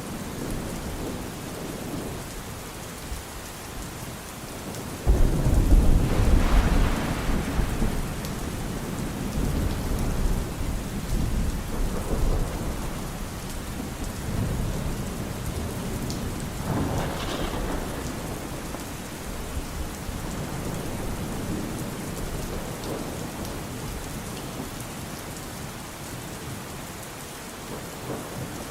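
Steady rain falling with thunder: a loud clap about five seconds in that rolls on for several seconds, and a weaker rumble later on.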